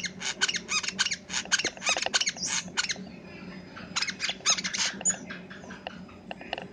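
Brown-throated sunbird (kolibri kelapa) singing rapid strings of sharp chirps in two dense runs, with a pause of about a second between them.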